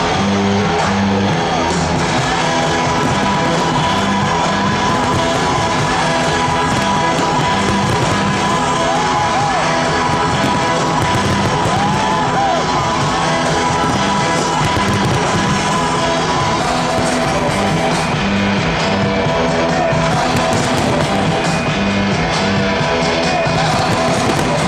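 Loud rock music with guitar and a steady repeating bass line.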